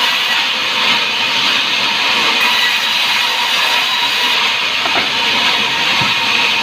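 Wood sawmill running: a loud, steady rushing noise with no break.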